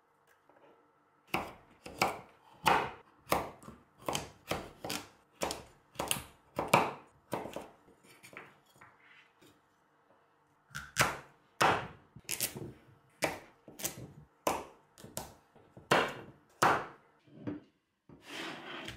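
Kitchen knife chopping pumpkin into chunks on a wooden cutting board, each cut ending in a knock on the board, about two cuts a second. The cutting comes in two runs with a pause of about two seconds between them.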